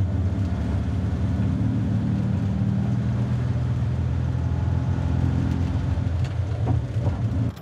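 A 1970s Fiat 500's air-cooled two-cylinder engine running steadily while the car is driven, heard from inside the cabin.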